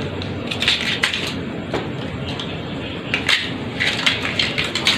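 A kitten's paws and claws scuffing and tapping on a flattened cardboard box: a scatter of short scratchy clicks and scrapes, most of them in the second half, over a steady background hiss.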